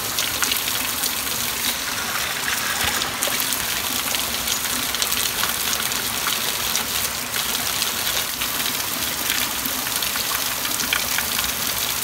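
A thin stream of water pouring from a small cascade and splashing steadily onto rock and a dog standing under it, over the running of a shallow stream.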